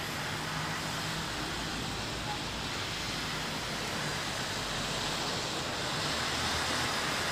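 Steady rushing outdoor noise with the low hum of a car engine as a car pulls away across the snowy car park.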